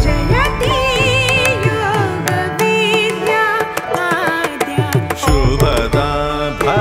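Background music in Indian classical style: a winding, ornamented melody over steady hand-drum strokes.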